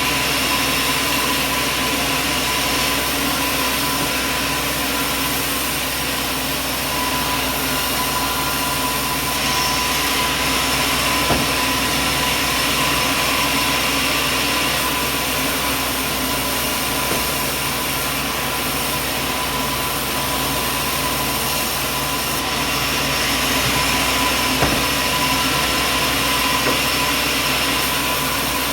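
Machinery running steadily: a constant engine-like drone with a steady tone through it, and a faint knock about eleven seconds in.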